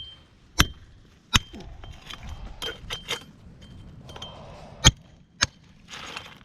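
Metal hand tool striking a concrete slab, about five sharp, unevenly spaced blows, each with a brief metallic ring, as the concrete is tested for soundness.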